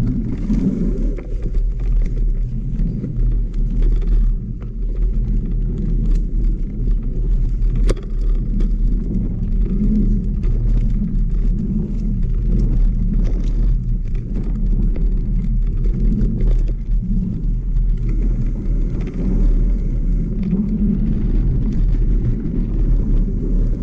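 A mountain bike riding a trail, heard on the camera's microphone: a steady low rumble of wind and tyre noise, with scattered clicks and rattles.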